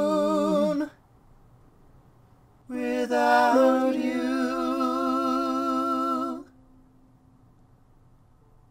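A singer's unaccompanied voice holding wordless notes with vibrato. The first note dies away about a second in. A second note slides up a few seconds in and is held for almost four seconds.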